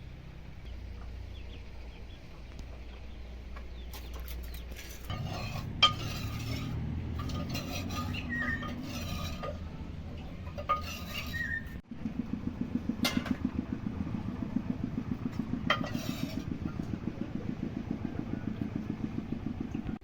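Metal cooking pots and utensils being handled, with a few sharp clanks. Then, about halfway through, a steady rhythmic scraping or knocking of about four strokes a second.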